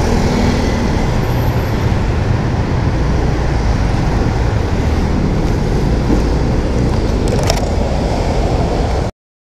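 Steady wind rush and road noise while riding a Honda Airblade scooter through city traffic, wind buffeting the microphone. The sound cuts off abruptly near the end.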